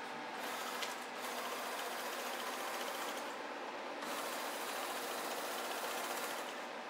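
TUR SC 22-inch lathe's gear train running, a steady mechanical whir of several tones, with a brighter rattle that comes and goes in three stretches.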